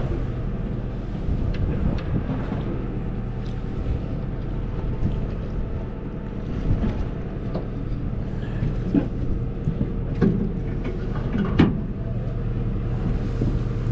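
A party boat's engine running with a steady low hum, with a haze of wind noise and scattered short knocks of fishing gear against the boat, the sharpest about eleven and a half seconds in.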